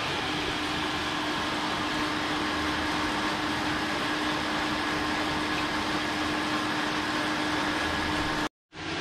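Elite Arion Mag bicycle rollers spinning under a road bike's tyres as the rider pedals steadily: an even whirring with a constant hum. It cuts off abruptly near the end.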